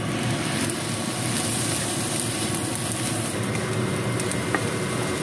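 Fried rice sizzling in a frying pan while a wooden spatula stirs and scrapes it, over a steady, even rushing noise from the stove area, with a few light taps of the spatula on the pan.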